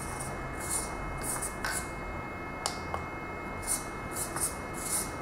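Mini 1/24-scale electric RC rock crawler (HBX 2098B) creeping slowly, its small motor and gears giving a steady thin whine over a low hum, with short high buzzes every half second or so and a few sharp clicks.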